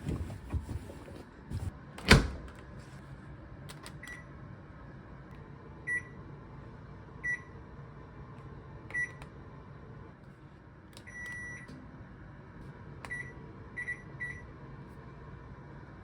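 Electronic appliance beeper, like a microwave oven's keypad: a string of short high beeps as buttons are pressed, with one longer beep about eleven seconds in, over a low steady hum. A sharp knock comes about two seconds in.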